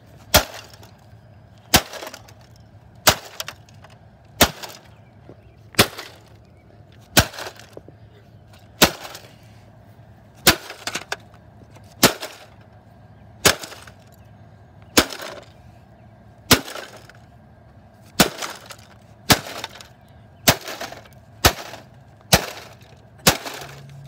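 A bat striking a smashed TV's plastic casing over and over, about nineteen sharp blows, roughly one every second and a half and coming faster near the end.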